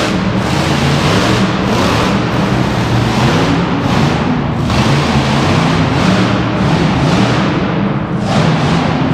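Monster truck engine revving hard, loud and continuous, its pitch rising and falling, heard from the stands of an indoor arena.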